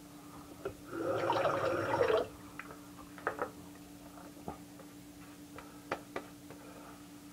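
A short rush of running water, just over a second long, like a tap rinsing a razor. Then a few short, sharp scrapes and clicks of a Gold Dollar stainless 6/8 straight razor on lathered stubble, over a faint steady hum.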